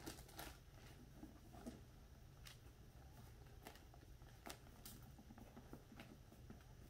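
Near silence: faint room tone with a low hum and a few soft, scattered clicks.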